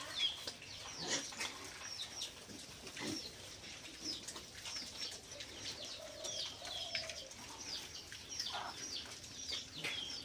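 Birds chirping: short, high chirps that fall in pitch, repeated a couple of times a second throughout.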